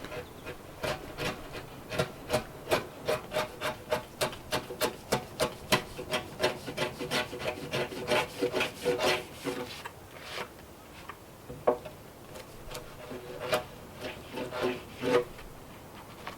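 A hand tool shaving and scraping a wooden log in quick, even strokes, about three a second, which thin out into a few scattered strokes after about ten seconds.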